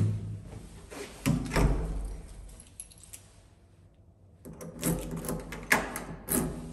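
An apartment front door shutting with a latch click and a low thud, then keys jangling and a key turning in the deadbolt with a series of sharp metal clicks in the second half.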